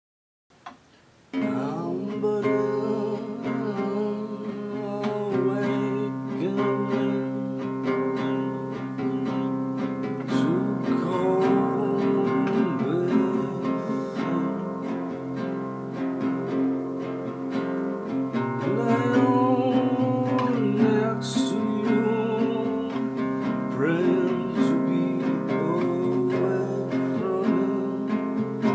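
Acoustic guitar played in picked notes and chords, starting about a second in and going on without a break.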